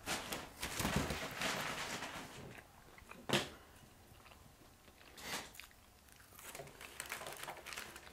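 Close-up crunchy chewing of fried food, mostly in the first couple of seconds, with paper and packet crinkling and a sharp snap a little past three seconds in.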